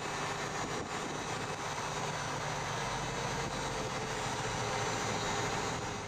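Steady drone of farm machinery engines working a potato field, with the close engine of the vehicle following the potato harvester and its truck.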